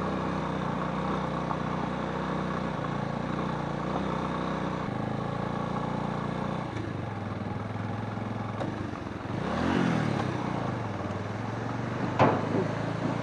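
Motorcycle engine running steadily under way on a rough gravel road, its note dropping lower about seven seconds in as the rider eases off. About ten seconds in the engine revs briefly up and back down, and a sharp knock comes near the end as the bike rolls onto a steel bridge deck.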